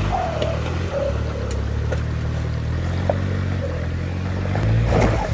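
Nissan Y61 Patrol's engine running at low, steady revs as it crawls over loose rock, with a few short clicks and knocks. Near the end the engine revs up and gets louder.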